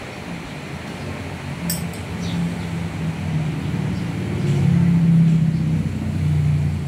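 A vehicle engine running, its pitch shifting and growing louder after about four seconds. There is a single light metallic clink early on.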